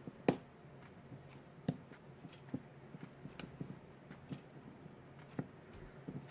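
Small clicks and ticks of a hook pick working the pin stack of a Kasp 14040 padlock under tension, with a few sharper clicks a second or two apart among fainter ones.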